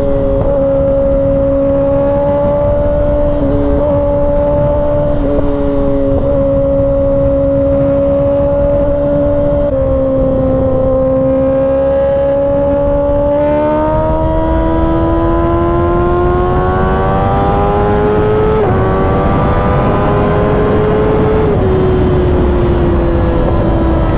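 Kawasaki ZX-6R's 636 cc inline-four engine and exhaust at highway speed, holding steady revs, then rising in pitch as it accelerates from about halfway through and easing off near the end. A steady rush of wind noise runs underneath.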